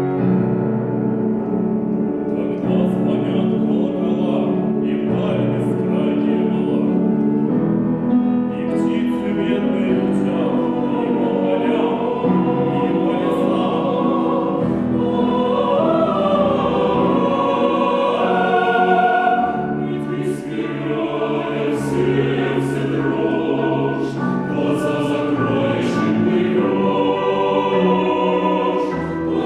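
Chamber choir singing a choral song in Russian, many voices holding sustained chords with crisp 's' consonants cutting through.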